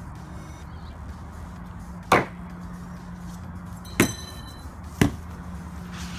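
Three sharp chops of a machete blade striking cardboard boxes: one about two seconds in, then two more a second apart near the end.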